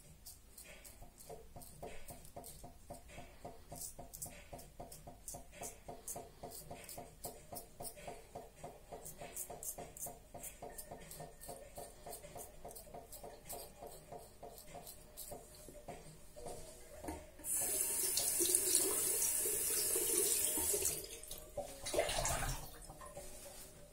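Mühle Rocca double-edge safety razor scraping through lathered stubble in quick short strokes. About 17 s in, a tap runs hard for a few seconds, with water splashing near the end.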